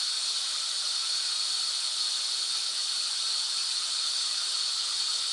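Steady white-noise hiss, an even bright rush with little bass.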